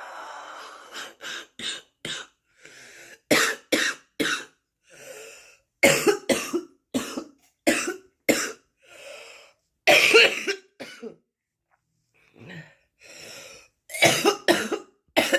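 A woman's smoker's cough: a long breath out, then repeated bouts of short, harsh coughs with breaths drawn in between them.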